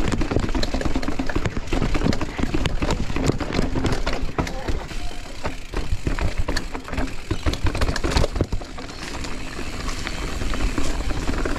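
Mountain bike descending a rough trail: tyres running over dirt and rock while the chain and frame rattle over the bumps, many quick knocks over a constant low rumble.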